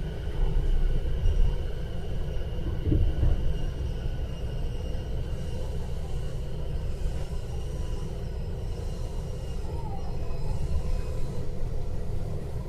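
Keihin-Tohoku Line commuter train running on the rails, heard from inside the car: a steady low rumble with a few faint high tones that fade out about halfway through.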